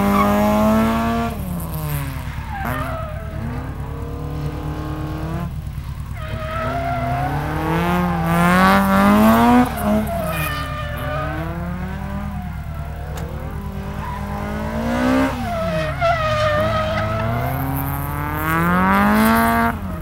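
Toyota AE86's engine revving hard and dropping back over and over as the car is drifted, with the rear tyres skidding and squealing. The engine pitch climbs and falls several times.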